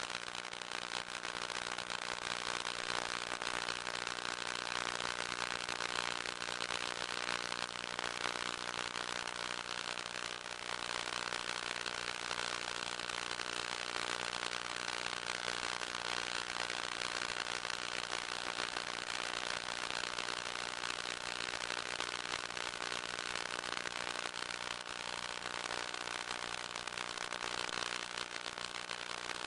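Electric motor and propeller of a small FPV model plane running steadily in flight: a constant whine with several steady tones over hiss.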